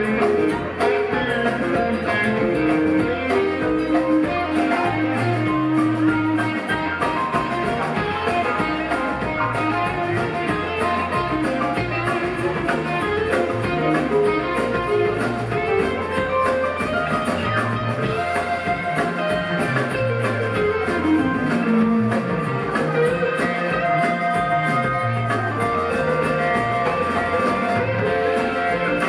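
Live rock band playing an instrumental jam: electric lead guitar over bass, keyboards and drums, with one note sliding down about two-thirds of the way in.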